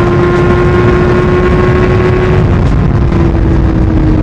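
Motorcycle engine running at steady revs while riding, heard from the rider's own microphone. Its pitch holds level, then eases slowly down in the second half, over heavy wind rush.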